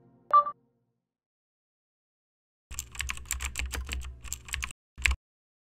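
Computer keyboard typing sound effect: a quick run of key clicks, about seven a second, for roughly two seconds, then a pause and one louder keystroke, like pressing enter. A short electronic blip sounds just before, at the very start.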